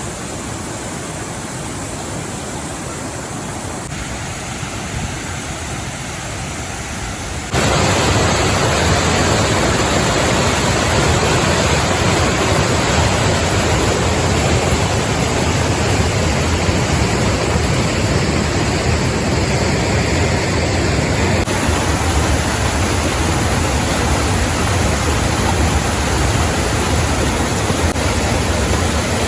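Rushing river water in a rocky mountain gorge: a steady noise that suddenly jumps louder and fuller about seven and a half seconds in.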